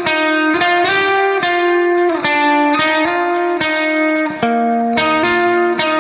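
Background music: a melodic guitar-like instrumental, notes changing about every half second.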